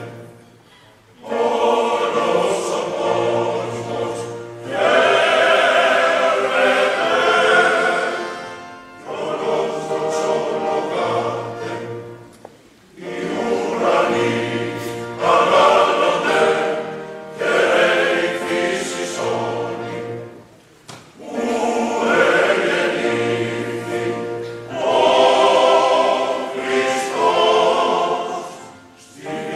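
A choir singing, in phrases of a few seconds each with brief pauses between them.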